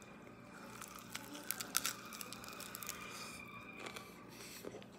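A person biting into and chewing a crispy oven-baked chicken wing, tearing the meat from the bone. A cluster of sharp crunching clicks comes between about one and two seconds in.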